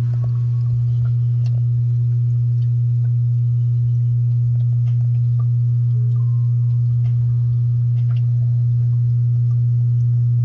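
Steady low electric hum from the tank's equipment, one even tone that does not change, with a few faint scattered ticks over it.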